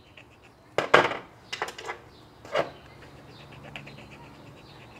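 Hand file scraping across a lead jig head to smooth off the cut sprue: three short strokes in the first three seconds, then fainter quick strokes.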